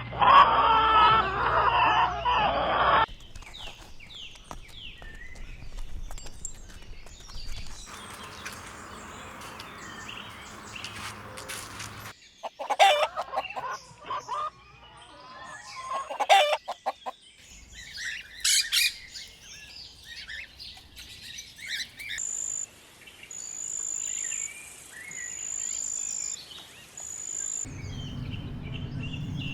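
Chickens clucking and calling, with birds chirping, in a run of short clips that change abruptly several times.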